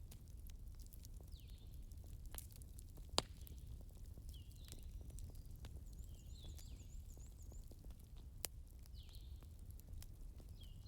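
Campfire crackling with scattered sharp pops, the loudest about three seconds in, over a low steady rumble. A short, high, falling animal call repeats about every second and a half in the background.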